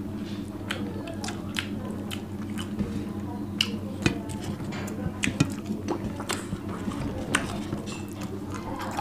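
Two people eating rice by hand from steel plates: close chewing with many small, sharp mouth clicks, and fingers mixing rice against the plates. A steady low hum runs underneath.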